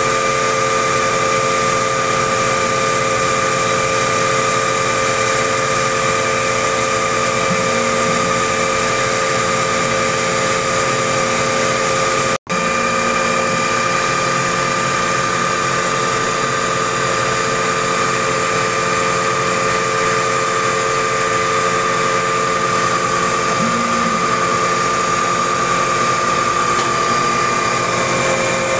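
EMCO Mill 55 CNC mill's spindle turning a half-inch end mill at 2000 RPM as it faces the top of a blue block, a steady machine sound with a high, even whine. The sound cuts out for an instant about twelve seconds in.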